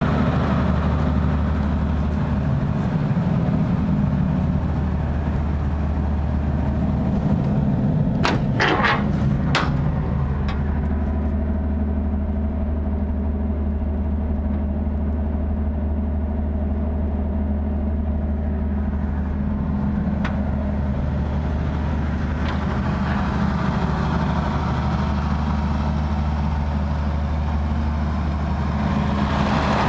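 Containerised 500 kVA diesel generator set, a Perkins engine, running steadily with no load on it (panel reading 408 V, 0 A in test mode), a deep even hum. A few sharp clicks come about eight to ten seconds in, and the sound grows louder and brighter near the end as the container's door is opened.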